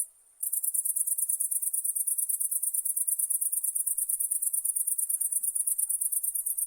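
Night insects chirping in a fast, even, very high-pitched pulse of about ten chirps a second. The chorus cuts out for a moment at the start, then resumes.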